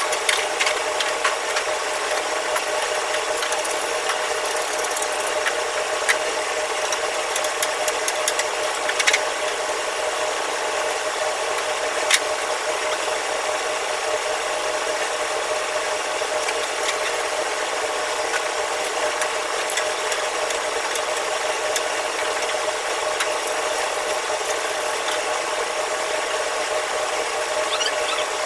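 Steady mechanical hum of commercial kitchen machinery, with a few light metallic clinks as wok-burner parts are handled over a steel bowl.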